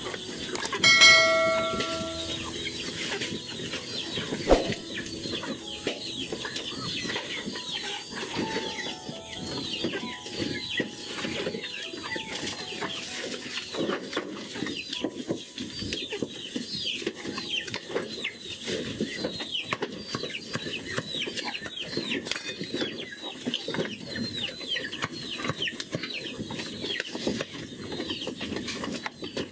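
Constant busy chirping of birds in and around a goat shed, over small clicks and knocks from goats feeding at a wooden trough. About a second in a short, bell-like chime rings out.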